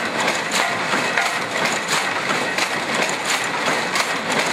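A hall of 35-year-old power looms weaving black tent fabric, running with a steady, even mechanical clatter.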